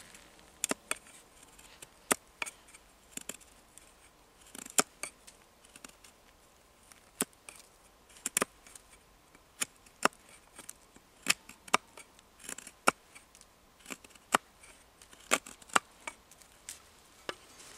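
Large knife blade cutting notches into a bark-covered wooden stick: sharp, short cuts at irregular intervals, about one or two a second.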